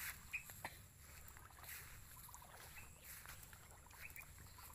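Faint sloshing and small splashes of water as two people wade through a shallow pond, dragging a fine mesh seine net.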